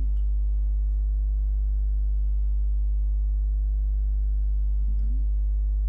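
Steady low electrical mains hum with an even ladder of buzzing overtones, running unchanged: interference picked up by the recording setup. A brief faint vocal sound comes about five seconds in.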